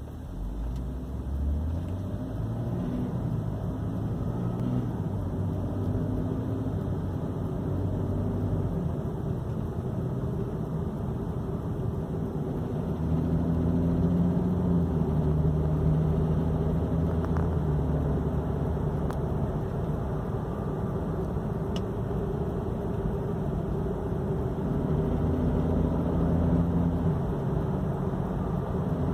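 2014 BMW 335i driving in gear under load, its engine note stepping up and down in pitch several times, with the rattle that shows up under load in drive. The rattle comes with the A/C on or off, on a completely stock car, and its cause is not known.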